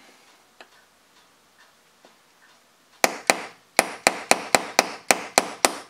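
Small hammer tapping a part into a Hi-Capa airsoft gas magazine: about ten light, quick taps, roughly four a second, starting about three seconds in after a few seconds of faint handling. The taps drive the part all the way through the magazine, further than intended.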